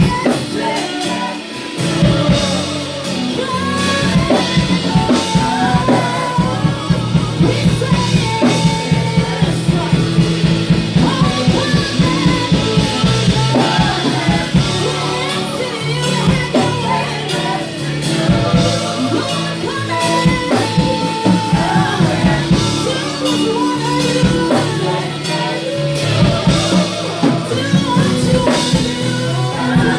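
Live gospel praise-and-worship music: singing over a full band with drum kit and guitar, the drums settling into a fast steady beat about two seconds in.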